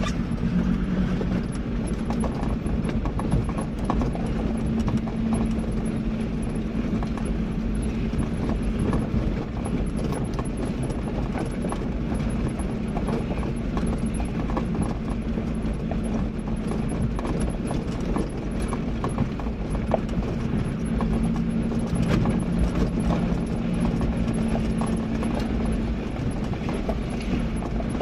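A 4x4's engine running at a steady low drone as it drives slowly over a loose gravel track, with tyres crunching on stones and many small rattles and knocks from the vehicle, heard from inside the cab.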